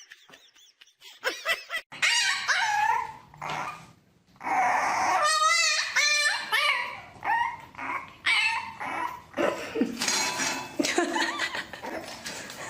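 A dog whining and barking in a series of short, pitch-wavering calls, starting about two seconds in with a brief pause about four seconds in.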